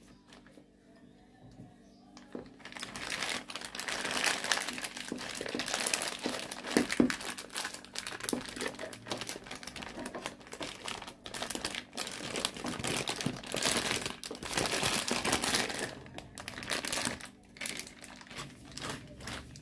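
Thin plastic piping bag crinkling and crackling as hands pack it with mashed-potato dough and work it inside a glass tumbler. The crinkling starts about two seconds in, comes in dense bursts of sharp crackles, and thins out near the end.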